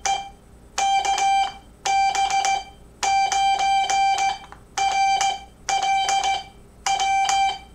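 Morse code sidetone, a steady beep at about 750–800 Hz keyed on and off in dots and dashes, sent by hand on a 3D-printed sideswiper (cootie) key rocked side to side; the operator is calling CQ, a little sloppily.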